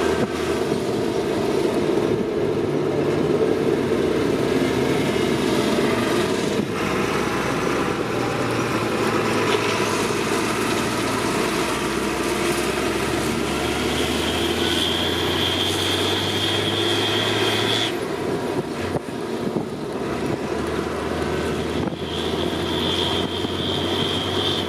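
Fendt Favorit 824 tractor engine running steadily under load. A high turbo whistle comes in for a few seconds past the middle, stops as the engine note drops, and returns near the end.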